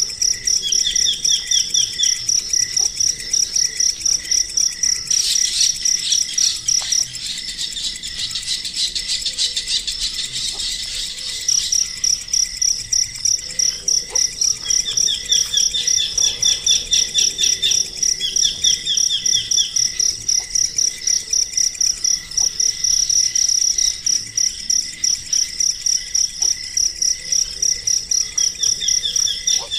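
Insects chirping in a steady, evenly pulsed high trill, about three pulses a second, broken for several seconds in the middle by a hissier high buzz, with short bursts of rapid lower chirping now and then.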